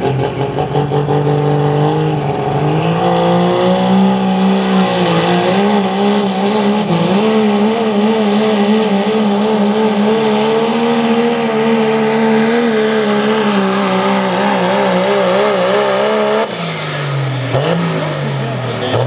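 Modified diesel 4x4 pulling truck at full throttle dragging the pulling sled. The revs climb over the first couple of seconds, then hold high with a wavering pitch. About sixteen seconds in the throttle comes off, and the revs drop suddenly and fall away along with a high whistle.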